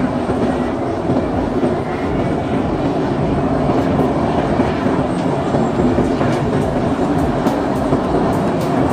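Jet engines of a line of F-16 fighters running on the ramp: a steady, loud rumble with a faint high whine.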